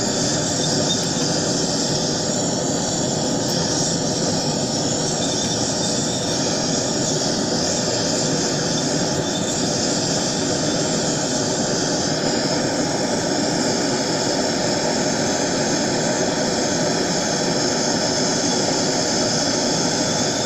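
Propane turbo torch burning steadily, a continuous roar of flame heating a crucible of molten silver solder.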